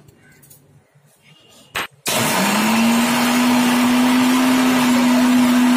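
Kenstar mixer grinder switched on about two seconds in, its motor spinning up quickly to a steady whine as it grinds biscuits into powder in its steel jar. A short click comes just before it starts.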